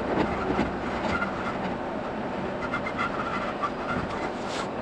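E217 series commuter train running, heard from inside a passenger car: a dense, steady rattling rumble with short high tones flickering in and out.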